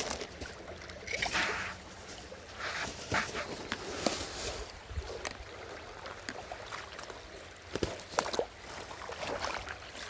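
Water sloshing and splashing in a waterfall stream, coming in uneven swells, with a few sharp knocks.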